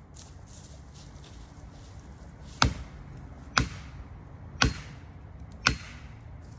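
Felling wedges being driven into a pine's back cut with blows from a striking tool, four sharp strikes about a second apart starting a little over two seconds in, to push a back-leaning tree over.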